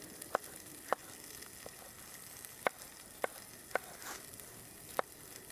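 Beef cubes and onions frying in a pan over a campfire: a steady sizzle, with six sharp clicks scattered through it.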